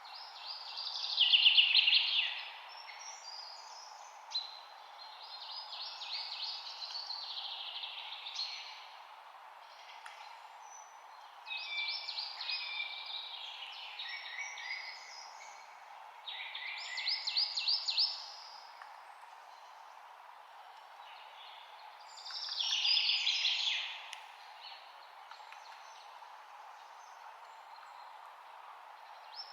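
Songbird song: short phrases of rapid high notes, one every few seconds, over a steady background hiss.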